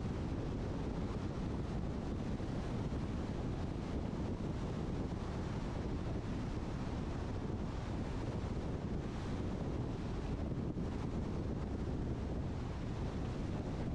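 Steady rumble of road and wind noise from a moving car, low and even throughout, with no distinct events.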